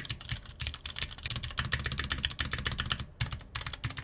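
Cherry MX Board 3.0S mechanical keyboard with an aluminium body and ABS keycaps being typed on quickly: a dense run of key clacks with a short break about three seconds in. There is almost no hollow case resonance.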